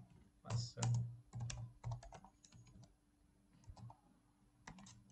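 Typing on a computer keyboard: irregular runs of key clicks, with a quieter lull a little past the middle.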